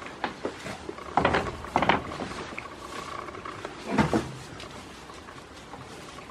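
Goats jostling in a straw-bedded wooden pen, with a few short, loud sounds about a second, two seconds and four seconds in among the rustling and shuffling.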